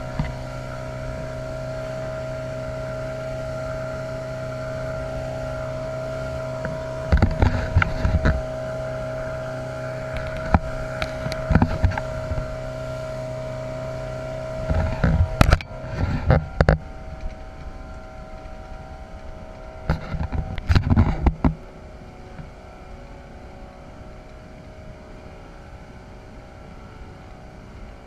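Motorboat engine running steadily at speed, broken by several loud thumps. Past the middle the engine note drops away and the running gets quieter.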